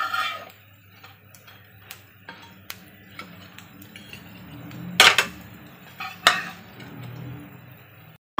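Metal spatula scraping and clinking against a flat griddle pan as fried soybean cutlets are turned and lifted out of the oil. There are sharp scrapes at the start and about five and six seconds in, with lighter clicks between them.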